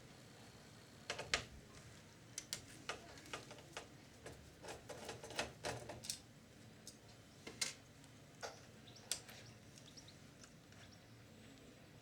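Faint, irregular small clicks and taps of hands working on an opened VCR's tape mechanism, thinning out after about nine seconds.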